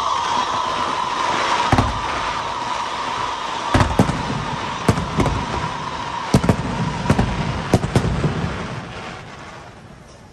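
Fireworks going off: about ten sharp bangs at irregular intervals over a dense crackling hiss, with a steady high tone under them that fades out, the whole dying down near the end.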